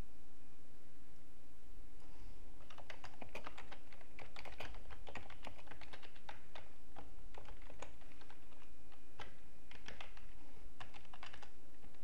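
Typing on a computer keyboard: irregular runs of keystrokes that start a little over two seconds in, with short pauses between runs, and stop shortly before the end.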